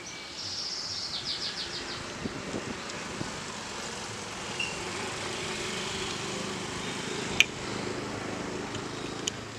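A small motorbike engine runs by on the street, a low steady hum through the second half. Early on a bird chirps a quick run of high notes. One sharp click about seven seconds in is the loudest sound, and a fainter one follows near the end.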